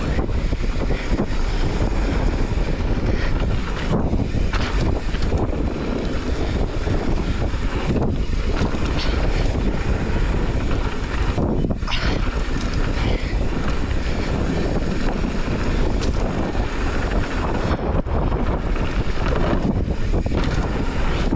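Wind buffeting the camera microphone over the steady sound of a mountain bike's knobby tyres rolling on a packed dirt trail, with occasional knocks and rattles from the bike over bumps.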